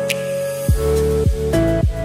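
Background music: held synth chords, joined under a second in by a deep kick drum beating about every half second.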